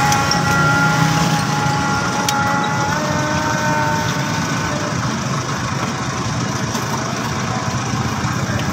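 A machine running steadily with a loud drone and several high whining tones, which step up in pitch about three seconds in. One sharp click about two seconds in.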